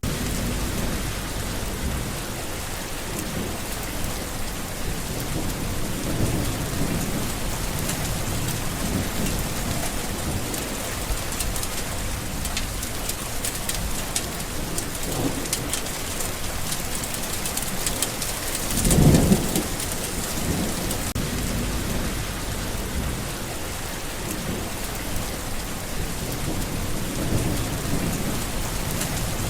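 Steady heavy rain falling, with distant thunder rumbling low throughout and one louder roll of thunder about 19 seconds in.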